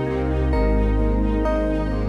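Background music: slow, gentle new-age style music with sustained chords that change about every second.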